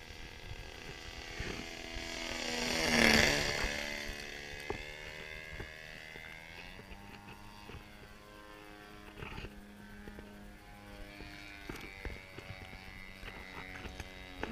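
Engine and propeller of a radio-controlled Aeroworks Checkmate model airplane making a fly-by pass: it grows louder to a peak about three seconds in, its pitch dropping as it goes by, then drones on steadily at a distance.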